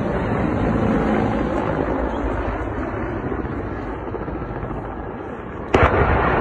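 Steady rushing noise of a low-flying helicopter, then a single sharp, loud bang near the end.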